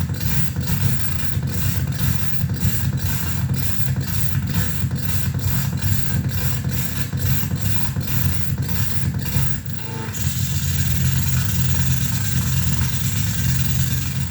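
Electronic noise from a rig of feedback mixer, reel-to-reel tape and reverb: a low bass drone under a rhythmic pulsing hiss at about three pulses a second. About ten seconds in, the pulsing gives way to a steady hiss over the same drone.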